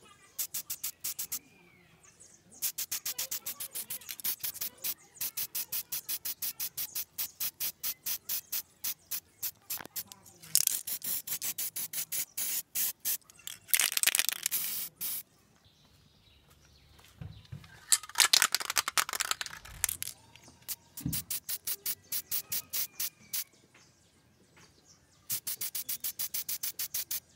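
Aerosol spray-paint can being shaken, its mixing ball rattling in fast, even runs of about five clicks a second, between three longer hissing bursts of spraying. A single dull knock comes a few seconds after the last spray.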